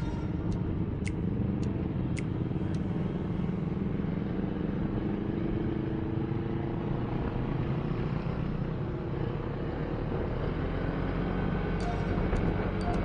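Motorcycle engine running on the move, its pitch drifting a little with the throttle, under a steady low rumble. A light ticking about twice a second sounds through the first three seconds.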